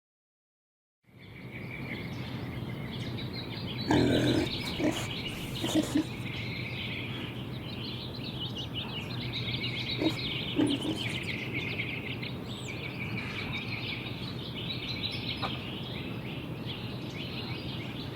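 A dense chorus of many birds chirping, starting after about a second of silence, with a few dull knocks about four to six seconds in and twice more near the middle.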